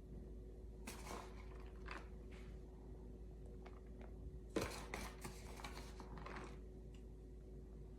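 Faint handling sounds as fresh mozzarella is put onto a pizza: soft rustles and light taps, with one sharper knock a little past halfway, over a faint steady hum.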